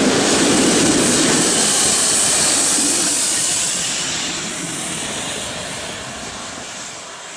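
Steam-hauled passenger train running past on the rails, its coach wheels rolling and clattering, fading steadily as the train moves away.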